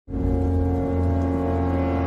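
Intro music opening on a deep, steady droning chord, like a foghorn blast, that starts abruptly and holds unchanged.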